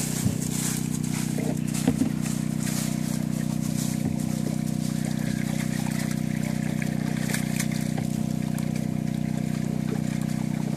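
A steady, even engine hum with water trickling, and a couple of light knocks in the first two seconds.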